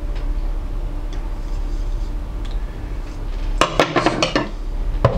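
Steel knives clinking and knocking against a desk as they are set down and handled: a quick cluster of sharp clinks about three and a half to four and a half seconds in, and one more near the end.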